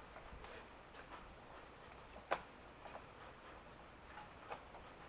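Faint, scattered small clicks and taps of hands working on a chainsaw, with one sharper click a little over two seconds in.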